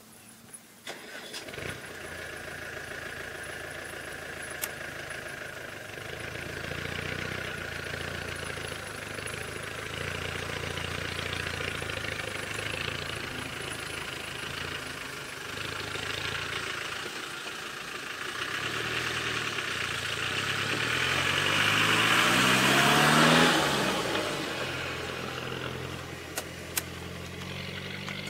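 Safari vehicle's engine running close by. Its note rises and grows louder to a peak a little over two-thirds of the way through, then drops in pitch and fades as the vehicle pulls past.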